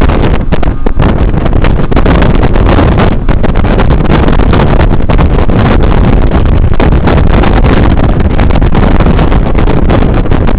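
Yamaha 115 hp two-stroke outboard running, a loud steady din with heavy wind noise on the microphone.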